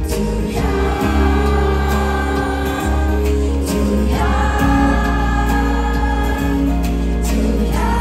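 Live band music with acoustic guitar, keyboard and bass under long held wordless sung notes, a new note swelling in about half a second in and another around four seconds in.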